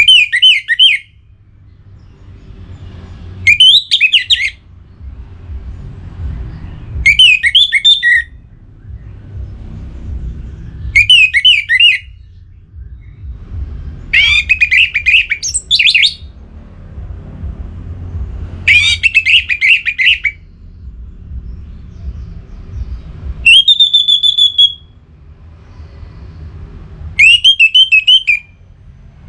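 Orange-headed thrush singing: eight short, rapid, warbled phrases, one about every four seconds, with a low steady rumble between them. One phrase near the end is a briefer held high note.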